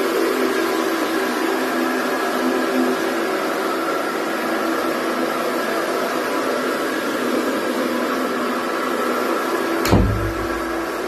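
Single-disc rotary floor machine scrubbing a carpet, its electric motor running with a steady hum. About ten seconds in there is one thump, followed by a brief low rumble.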